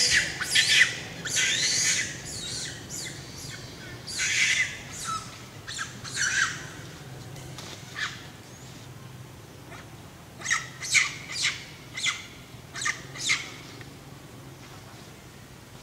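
Shrill, high-pitched animal calls in short bursts, some gliding in pitch, with a quick run of about six short calls in the second half.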